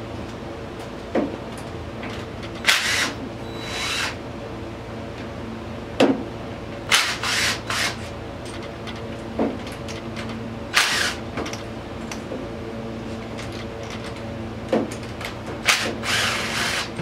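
Tools working on the engine's top end while the rocker arms are removed: irregular short bursts of tool noise and sharp metallic clicks and knocks. A steady hum runs underneath.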